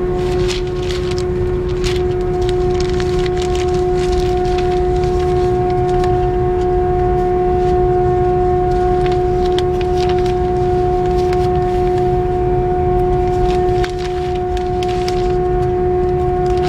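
Boeing 747-400 cabin noise during taxi: the engines at idle give a steady droning hum with a low rumble, with scattered light clicks and rattles.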